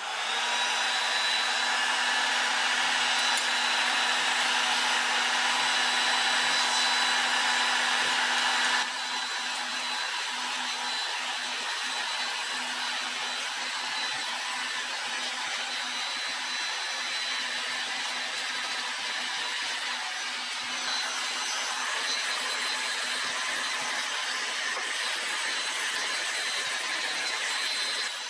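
Makita electric heat gun running steadily: a blower rush with a low motor hum and a thin high whistle, as it heats old paint so it can be scraped off. It drops a step in level about nine seconds in.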